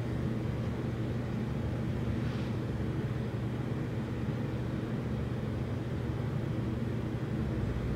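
Steady low motor hum with several even tones, unchanging throughout, and a faint brief rustle about two seconds in.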